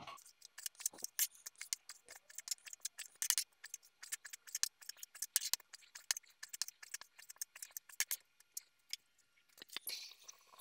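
Chef's knife slicing raw beef steak into thin strips on a plastic cutting board: quick, irregular taps of the blade striking the board, a few each second.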